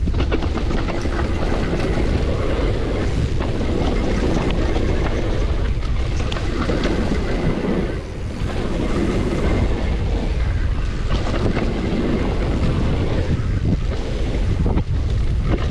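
Wind buffeting the microphone while a downhill mountain bike runs fast over a dirt and gravel trail, its tyres rolling on loose ground and the chain and frame rattling with many quick clicks over the bumps.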